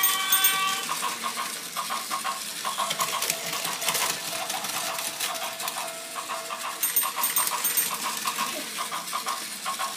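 Plarail toy level crossing ringing its electronic warning bell in a repeating ding while a Plarail Sobu Line sound train runs over the plastic track, clattering and playing its 'gatan goton' rail-joint sound.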